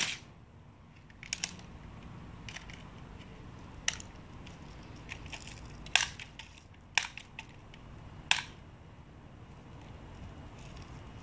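BB gun shooting: a string of sharp, irregularly spaced pops and clicks, about ten in all, from the gun firing and being worked and BBs striking the cans. The loudest comes about six seconds in and rings briefly.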